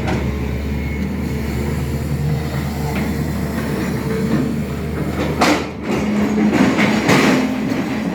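SANY excavator's diesel engine running steadily under load, with a sharp scrape about five seconds in and a stretch of loud scraping and clattering a second or two later.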